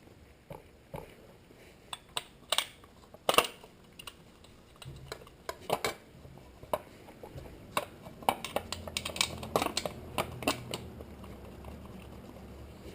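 Metal parts and hand tools clinking and clanking in irregular knocks as a frame saver guard is fitted back onto a Suzuki DRZ400 motorcycle. A faint low hum comes in about halfway through.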